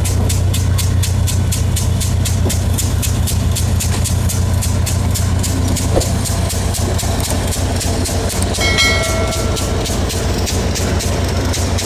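Sri Lankan diesel passenger train rolling slowly out of the station, its carriages passing with a steady low engine drone and a fast even ticking from the wheels. A brief high squeal comes about nine seconds in.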